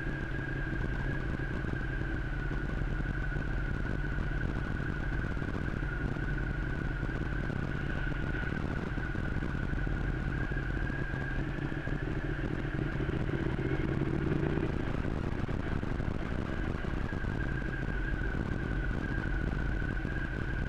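Motorcycle running steadily at low, even revs while rolling downhill on a dirt road, with a steady high whine over the engine. The engine note swells briefly about twelve seconds in, then settles back.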